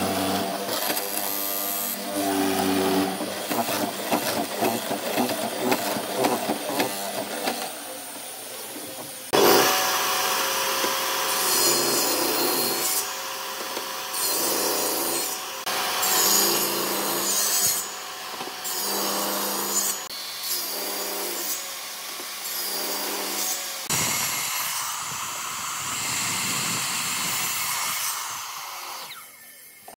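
Woodworking power tools cutting wood. A machine motor runs through the first few seconds. From about nine seconds a table saw cuts in repeated passes, and from about 24 seconds a mitre saw cuts through a stack of boards.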